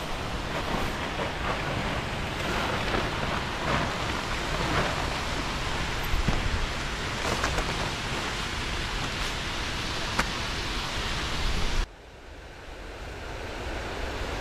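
Steady rush of falling water from a waterfall. It drops abruptly to a quieter level about twelve seconds in, then slowly builds again.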